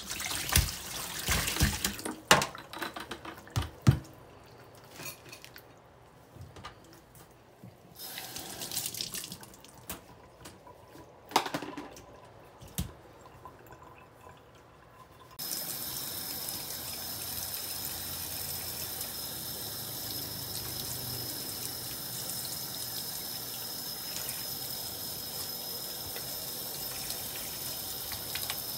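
Water from a tap splashing in uneven spurts with a few sharp knocks, then changing abruptly to a steady, even rush about halfway through.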